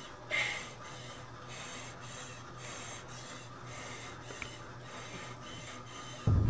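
A cyclist pedalling hard on a cycling ergometer in a maximal exercise test, panting: a steady low hum with a rhythmic whoosh about twice a second and a harder breath just after the start. Just before the end a much louder low rumble cuts in suddenly.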